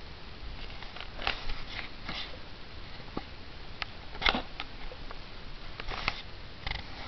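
Handling noise from shirts and the camera being moved: scattered rustles and soft clicks, the loudest about four seconds in and a cluster of them near six seconds.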